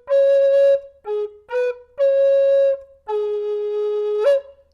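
Solo flute playing a slow melody. Pairs of short notes lead into long held notes. The last long note sits lower and slides up to a higher pitch near the end.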